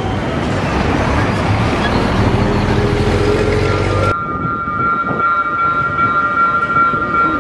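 Loaded freight train of covered hopper wagons rolling past over street-level track, a dense rumble with a low diesel drone. After a cut about four seconds in, a GE C30-7 diesel locomotive approaches slowly with its engine running and a steady high-pitched tone held over it.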